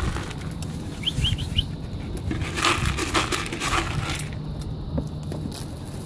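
Domestic pigeons' wings flapping in flurries as the flock takes off and lands, loudest from about two and a half to four seconds in. A few quick high chirps about a second in, over a low steady rumble.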